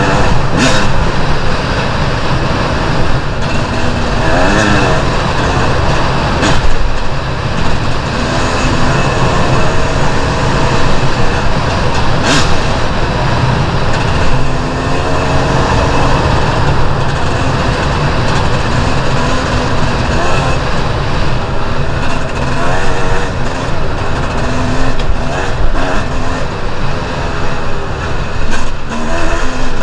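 Two-stroke enduro dirt bike engine running hard off-road, its pitch rising and falling again and again with throttle and gear changes, over a constant rushing noise.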